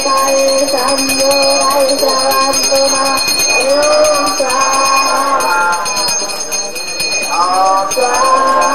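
Bells ringing continuously with several voices chanting in long, held phrases during a Hindu fire-sacrifice ritual.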